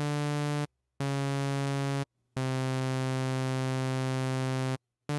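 Buzzy synthesizer tone playing a transcribed drum and bass bass line from MIDI: four held notes separated by short gaps, the third the longest.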